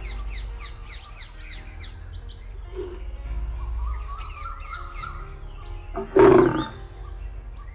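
Cartoon animal sound effects over steady background music: quick, repeated, falling bird chirps at the start and again around four seconds in, then a short, loud lion roar just after six seconds.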